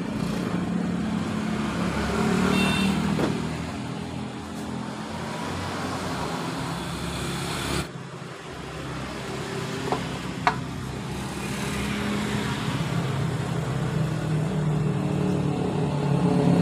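A motor vehicle engine running steadily, a low hum that dips briefly about eight seconds in, with a couple of light clicks around the middle.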